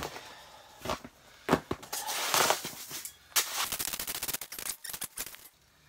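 Ice skimmer scooping and knocking slush and ice chips in a freshly drilled ice-fishing hole: a run of sharp knocks and scrapes, turning into a rapid clatter past the middle.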